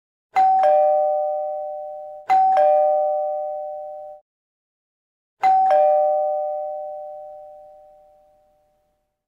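Two-note doorbell chime ringing 'ding-dong' three times: a higher note, then a lower one, each left to ring out and fade. The second chime is cut off short, and the third rings longest.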